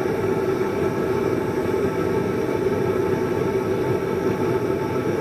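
Forge running steadily, a constant rushing noise with a low hum, as a hammer head is brought up to hardening temperature before the quench.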